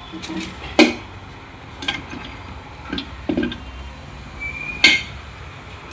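Steel gearbox parts (gears, shafts and shifter rod) knocking and clinking against each other as they are handled during reassembly: about half a dozen separate metallic knocks, the loudest about a second in and another near the end.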